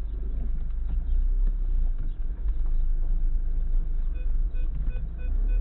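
Low rumble of an Audi Q5 creeping over a rough dirt road, heard inside the cabin, with occasional knocks from the tyres and suspension. About four seconds in, a rapid series of short electronic beeps starts.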